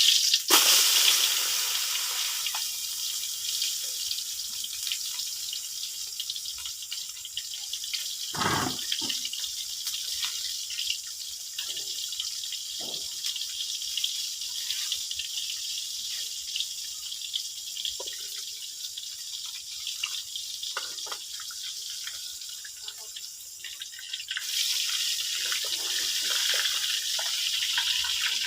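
Water running steadily, with scattered drips and splashes, one louder splash about eight seconds in. The running water gets louder again near the end.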